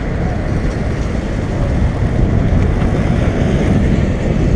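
Wind buffeting the microphone of a camera on a moving bicycle, a steady low rumble, with street traffic under it.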